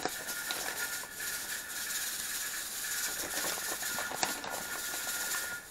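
Skinless chicken breasts sizzling in olive oil in a frying pan, over the steady steam hiss and held high tone of a pressure canner. A few sharp clicks, the clearest about four seconds in.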